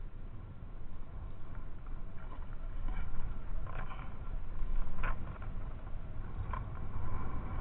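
Water lapping against a kayak with a steady low rumble, broken by three short, sharper splashy noises more than a second apart in the latter half.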